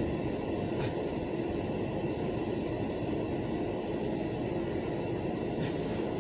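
Buffalo & Pittsburgh local freight train rolling past, a steady rumble of its cars' wheels on the rails.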